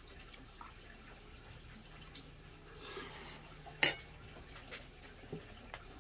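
Metal spoon scraping and clinking against a stainless steel bowl as rice is mixed with stir-fried eggplant. One sharp clink, the loudest sound, comes a little under four seconds in, as the spoon is left in the bowl.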